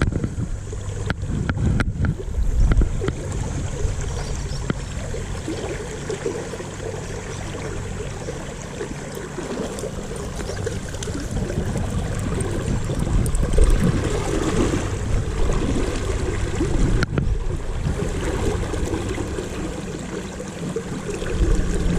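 River water rushing and splashing around a wading angler, with a few sharp clicks about one to two seconds in.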